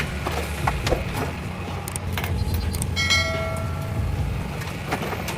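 Heavy vehicle engine running, a steady low rumble, with a brief high-pitched tone about three seconds in.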